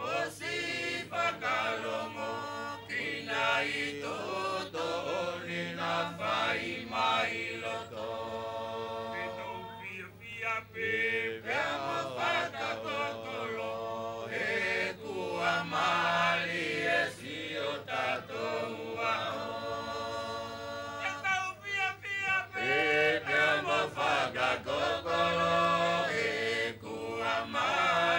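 Mixed choir of men and women singing a Wallisian me'e song in unison, chant-like, with a woman's voice near a microphone, and sharp beats struck along with the singing.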